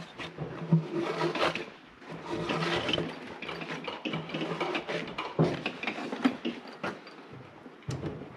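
Lexus LS430 intake manifold's ACIS valve flaps being worked open and shut by hand: a run of irregular light mechanical clicks and clatter.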